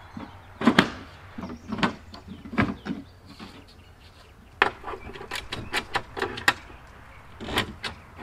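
Irregular knocks, taps and sharp clicks of hand work in the trailer's wheel well, as short pieces of cut threaded rod are dropped into the gap along the aluminum channel. A few heavier knocks with a dull thud come near the start and near the end, and a quicker run of sharp clicks comes a little past the middle.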